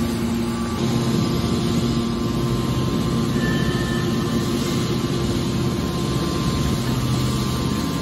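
Hydraulic scrap-metal baler's power unit running with a steady machine hum.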